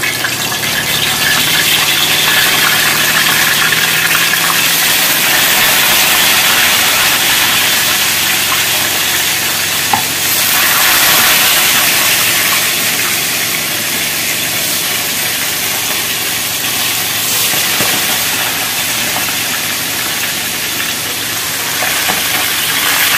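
Pieces of snakehead fish frying in hot oil in a wok: a steady, loud sizzle.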